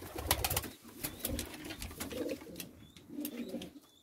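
Domestic pigeons cooing in the loft, low calls about once a second, with a few sharp knocks in the first second.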